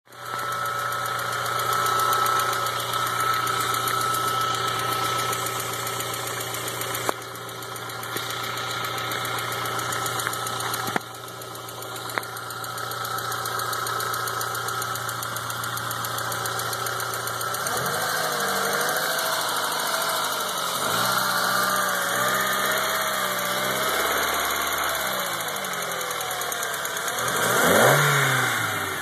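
A 2000 Volkswagen Jetta's 2.0-litre AEG eight-valve four-cylinder engine running with a ticking noise that appeared recently and whose cause is unknown. It idles steadily at first, its speed wavers in the second half, and it revs briefly and falls back near the end.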